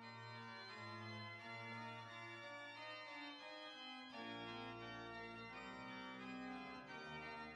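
Pipe organ playing slow polyphonic music: held chords over a bass line whose notes change about once a second.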